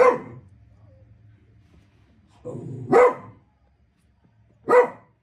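A dog barking three single times, a few seconds apart: once right at the start, once about three seconds in after a brief lower sound, and once near the end.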